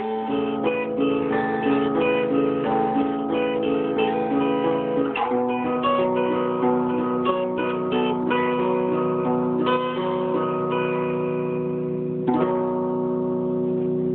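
Background music: a tune of quick plucked-string notes, changing to long held notes about twelve seconds in.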